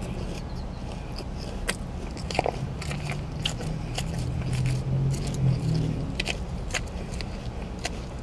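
Close mouth sounds of chewing crunchy lettuce salad, many short crunches and smacks, with a metal fork scraping a plastic takeout container, over a steady low hum.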